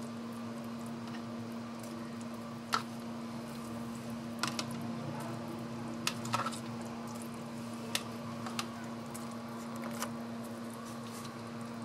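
A spoon clicking lightly against a bowl and cake pan, about seven scattered taps, as sugar syrup is spooned over a semolina cake. A steady low hum runs underneath.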